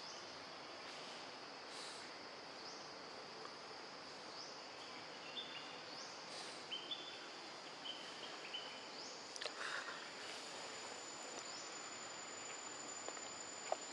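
Steady, faint, high-pitched insect drone, with short chirps scattered through it and a few soft rustles about two-thirds of the way in.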